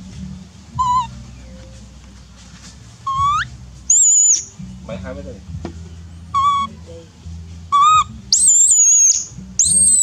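Baby macaque crying for milk: about seven short, shrill, whistle-like cries, several sweeping sharply up in pitch, and the longest and loudest come near the end.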